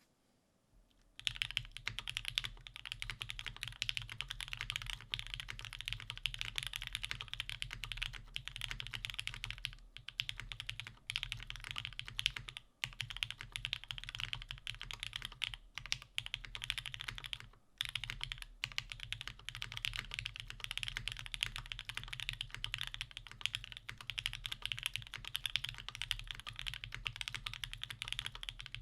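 Fast, continuous typing on a custom mechanical keyboard: a Perry IU prototype with a polypropylene (PP) plate and O-ring mount, fitted with lubed Gateron Minks linear switches under GMK keycaps. The typing starts about a second in and runs as a dense stream of key clicks, broken by a few short pauses.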